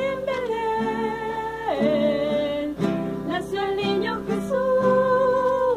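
Voices singing a Christmas hymn in long held notes over a strummed acoustic guitar.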